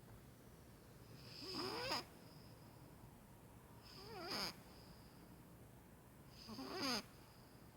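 Maine Coon cat snoring: three snores about two and a half seconds apart, each swelling and then stopping abruptly.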